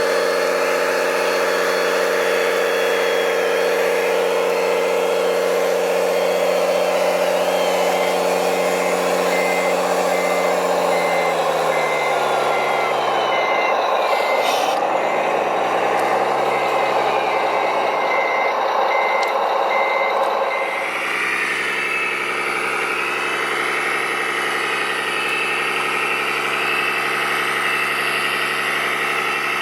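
A construction machine's engine running steadily while a reversing alarm beeps in two spells, about two beeps a second. The engine note sags and recovers in the middle, then shifts to a slightly quieter tone after about twenty seconds.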